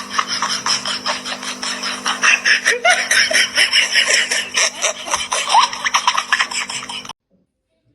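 A person laughing hard in rapid, repeated bursts over a steady low hum, cutting off abruptly near the end.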